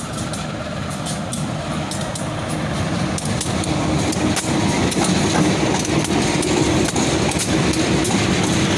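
GE CC 204 diesel-electric locomotives hauling a coal train pass close by. Their engines run loudly under many sharp clicks from the wheels on the rails, and the sound grows louder over the first few seconds as the locomotives come alongside.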